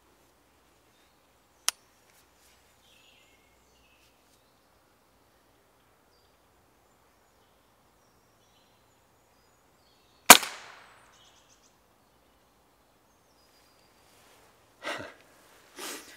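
A single shot from a Walther RM8 pre-charged pneumatic air rifle about ten seconds in: a sharp crack with a short fading tail. A thinner sharp click comes a couple of seconds in, and two quieter knocks near the end, with faint bird calls in the background.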